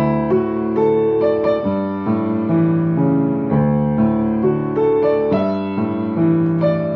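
Background piano music: a gentle melody of single notes over a repeating accompaniment at a steady pace.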